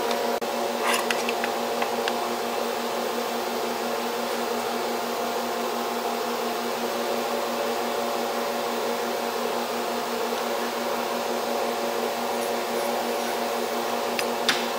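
Steady machine hum in a metal workshop: a fan-like whir with several steady tones, unchanging throughout, with a few faint light clicks as aluminium sheet is handled about a second in and again near the end.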